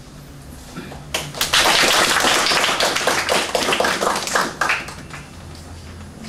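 Audience applauding: a burst of clapping that starts about a second in and dies away near the five-second mark.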